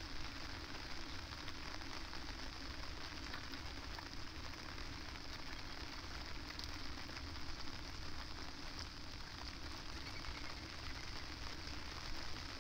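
Steady rain falling, with many fine drop ticks, over a low rumble of wind.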